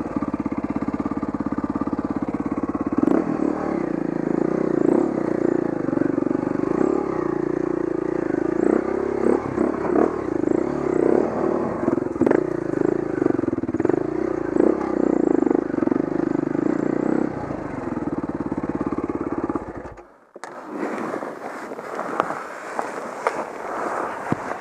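Dirt bike engine running at low, steady revs over a rocky trail, with frequent knocks and clatter. About twenty seconds in the engine cuts out suddenly, and scraping and clattering follow.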